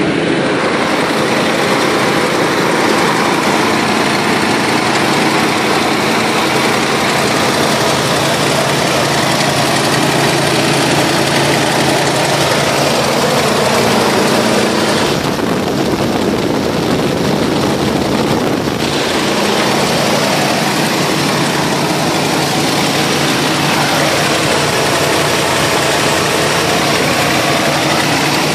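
1972 Ford F-250's engine idling steadily, freshly started, heard close over the open engine bay. A few seconds of hiss join it about halfway through.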